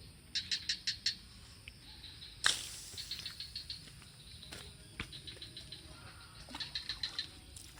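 A bird's high chirps in three short, rapid bursts of about six notes each, near the start, in the middle and near the end, with a couple of single sharp knocks between them.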